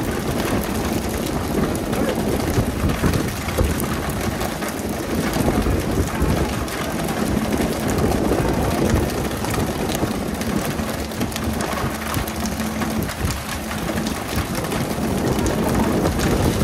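Pole-and-line tuna boat's engine running under a steady hiss of water spray from the boat's sprinklers splashing onto the sea surface.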